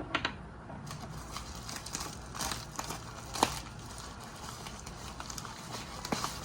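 Miniature concrete skate-park curbs clicking and knocking against each other and the surface as they are handled and stacked, with light rustling of packaging. Scattered short clacks, the sharpest about three and a half seconds in.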